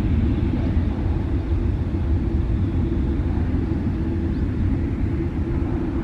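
Jet airliner engines rumbling steadily, a deep, even roar with no rise or fall.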